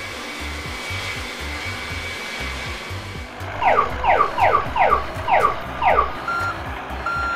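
A steady whooshing engine sound effect with a faint high tone, for the landed toy cargo plane, stops about three seconds in. Six quick falling whistle-like sweeps follow as the plane's loading ramp swings down. Near the end a truck's reversing beeps start, twice.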